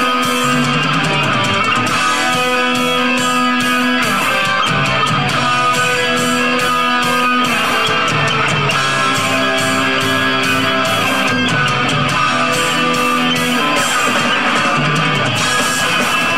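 Heavy metal band playing live: electric guitars holding long notes that change about every second, over drums and bass.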